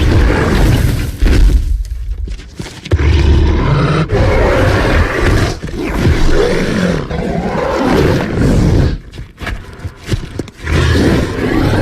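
Loud film dinosaur roars and growls, one after another, with short breaks about two seconds in and again near nine to ten seconds.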